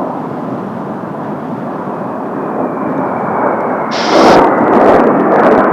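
Kawasaki T-4 jet trainers flying past with their turbofan engines running, the jet noise building steadily. A high whine comes in about halfway, and the sound grows much louder about four seconds in, with sharp crackles.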